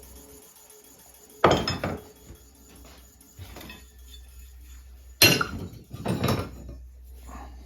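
Metal clanks from the rototiller's steel blades being handled: two loud ringing clanks, about a second and a half in and again about five seconds in, with a few lighter knocks and clinks between and after.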